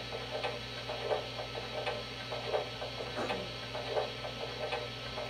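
The onboard Proto-Sound 2 sound system of an MTH RailKing PRR M1a model steam locomotive, part-way through its extended startup sequence: soft, evenly spaced pulses about three every two seconds, over a steady electrical hum.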